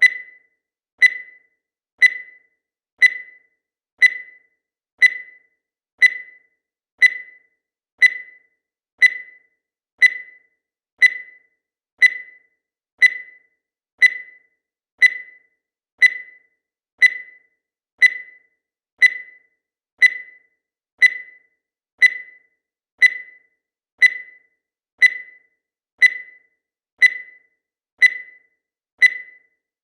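Digital countdown timer beeping once every second: short, high, single-pitched beeps that fade quickly, evenly spaced and all alike.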